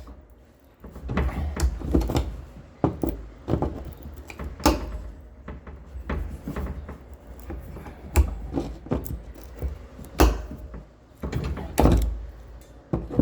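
Vice grips clamping and working the rusted metal fingers of a fuel tank's sending-unit lock ring, bending them up: irregular clicks and knocks of the tool on metal and the plastic tank, the loudest near the end.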